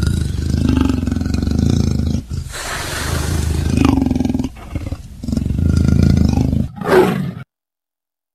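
A big cat roaring, used as a sound effect: three long, deep roars of about two seconds each, then a short final roar that cuts off suddenly.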